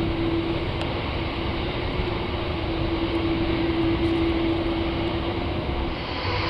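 Jet engines of a Boeing 747-8F running at low power: a steady rush with a steady low hum.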